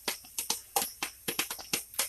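Quick, irregular clicks and taps, about five or six a second: a spoon knocking against a pot while onion and garlic are stirred in melted butter.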